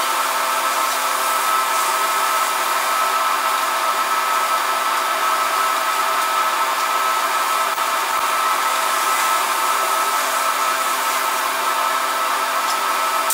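Gas-welding torch flame hissing steadily and evenly while a weld is run with hand-fed filler rod.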